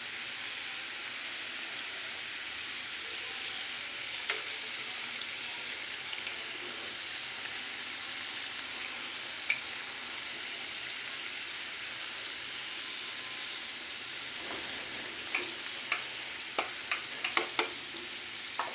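Gujiya pastries deep-frying in refined cooking oil in a kadhai over a low flame: a steady, gentle sizzle of bubbling oil. A few sharp clicks cut through it, more of them close together in the last few seconds.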